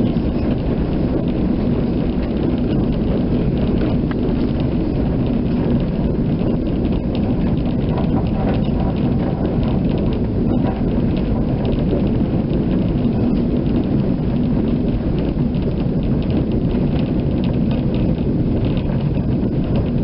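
Running noise of an electric tram car heard from its cab: a steady rumble of wheels on rail with a faint steady hum and constant fine rattling.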